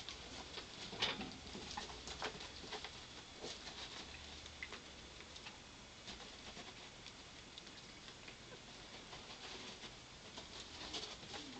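Pet rats eating peas and fishing them out of a ceramic water bowl: a faint, irregular patter of small clicks and taps. It is busier about a second in and again near the end.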